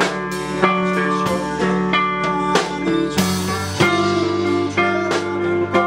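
Live band music: an electric guitar picking notes and chords over a steady bass line, with a crash about three seconds in.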